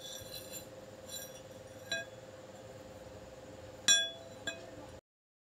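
Light metallic clinks of a folded steel axe blank being set down and shifted on an iron anvil, each ringing briefly; about five clinks, the loudest about four seconds in, over a steady low hum.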